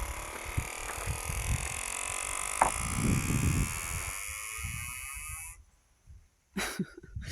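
Irregular low thumps, like footsteps and camera handling, over a steady outdoor hiss; the sound cuts off suddenly about five and a half seconds in, followed by two short noises near the end.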